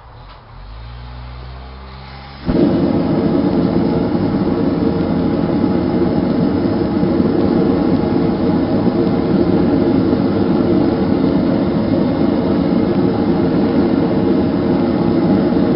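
Homemade gas forge burner, rebuilt to draw its air through an open intake instead of an air line, lighting with a sudden whoomp about two and a half seconds in, after a low hum of gas flowing. It then burns with a loud, steady roar.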